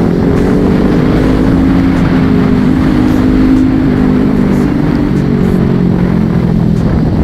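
Kawasaki Ninja 400's parallel-twin engine running while the motorcycle is ridden, its note holding steady and then dropping lower about four seconds in, over a steady rush of wind and road noise.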